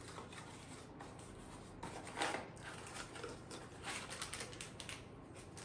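Small cardboard box and plastic wrapping being handled and opened, faintly: a soft scrape about two seconds in, then a run of small crinkles and ticks.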